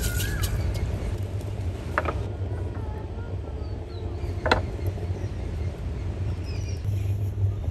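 Steady low rumble of wind on the microphone, with faint bird chirps and two sharp knocks about two and a half seconds apart.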